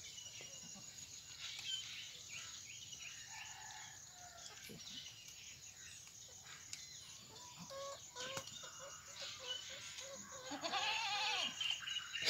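Faint farmyard animal calls: hens clucking and goats bleating, with a run of short calls in the second half.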